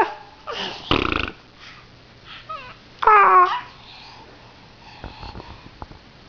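Baby vocalising: a loud breathy, rasping sound about a second in, then a short pitched squeal just after three seconds that slides down in pitch, followed by quiet.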